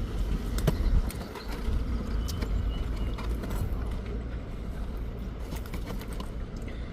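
Low, steady rumble of a vehicle engine, with a few light clicks in the first second or so.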